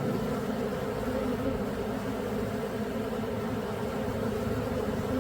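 Dense, steady buzzing of many honeybees around a hive, a continuous low hum.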